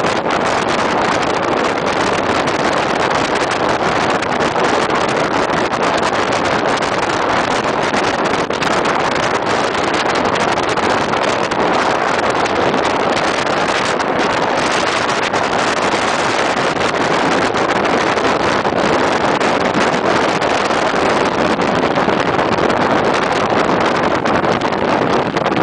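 Motorboats at planing speed, a Sea Ray 40 express cruiser among them: a steady rush of engine and water noise, with wind buffeting the microphone.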